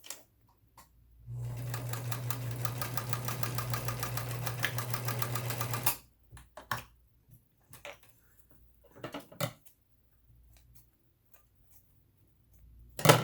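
Vintage Electra SX4000 sewing machine sewing a test seam for about four and a half seconds, its motor humming with rapid, even needle strokes; the upper thread tension has just been raised to 5 to cure loose stitches. Afterwards a few separate clicks and knocks, the loudest near the end.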